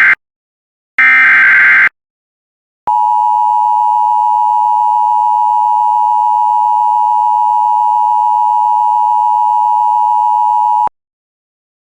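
Emergency Alert System signal heralding a severe thunderstorm warning: a one-second burst of buzzy digital SAME header data, then about a second later the two-tone attention signal (853 and 960 Hz), held steady for about eight seconds and cutting off abruptly.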